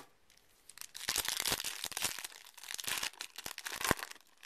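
Foil wrapper of a Yu-Gi-Oh! Mega Pack booster crinkling and tearing as it is ripped open by hand. It starts about a second in, runs as a dense crackle for about three seconds, and ends with a sharp snap.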